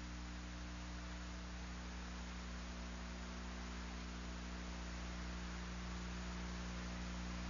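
Steady electrical mains hum with its overtones and a constant hiss on the old broadcast audio, with no other sound.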